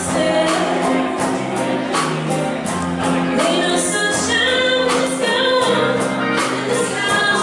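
Big band playing live, with saxophones, keyboard and a steady beat under sustained bass notes, and a woman singing into a microphone over it.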